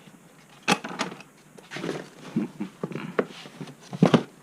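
Handling noise from tools and parts: a scattering of sharp clicks and knocks with some scraping between them, the loudest cluster near the end.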